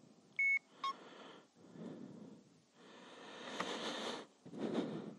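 Drift Ghost XL action camera beeping as it is switched on: a short, loud, high beep about half a second in, then a brief lower beep. Soft rustling handling noise follows.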